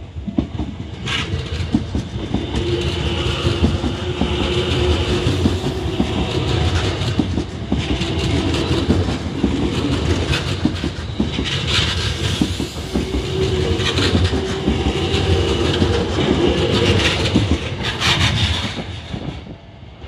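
Tokyo Metro 10000 series electric train passing at close range, a heavy rumble with wheels clacking over the rail joints. It swells about a second in, stays loud, and falls away just before the end.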